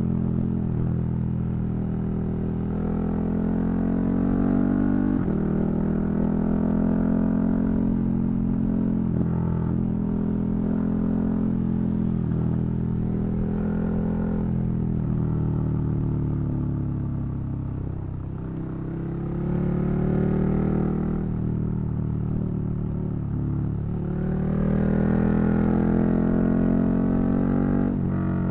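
KTM 1290 Super Duke R's V-twin engine heard on the move, its note repeatedly climbing and dropping as the bike accelerates, shifts and rolls off the throttle. Past the middle the engine note falls and softens as the bike slows, then it picks up again and climbs strongly near the end.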